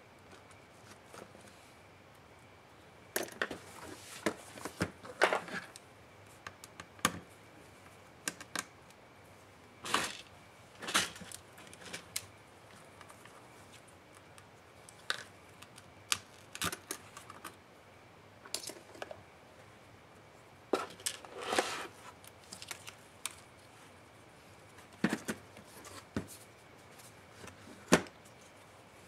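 Scattered clicks, taps and brief scrapes of plastic and metal laptop parts and a small screwdriver being handled during laptop disassembly, with a few sharp knocks among them and quiet gaps between.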